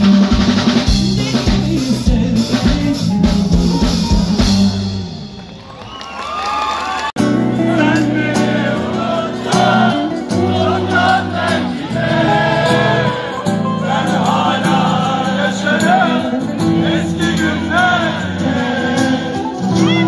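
Live concert music from a band with a drum kit, fading out about five seconds in. After an abrupt cut about seven seconds in, a singer's voice carries the melody over sustained chords.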